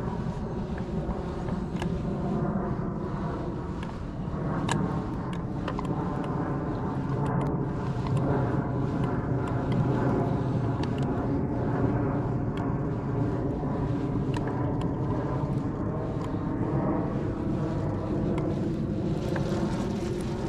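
Bow-mounted electric trolling motor humming steadily, with a few light clicks over it.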